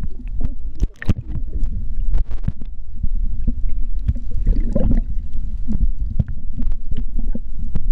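Underwater ambience: a steady muffled low rumble of water, with scattered sharp clicks and crackles.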